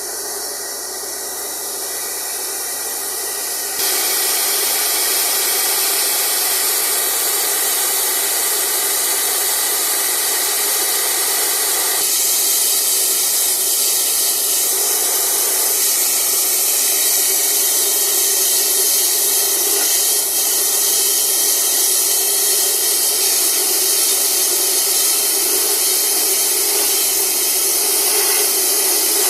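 Compressed air and water blasting out of a bore well during compressor flushing: a loud, steady hiss and spray that steps up in level about four seconds in.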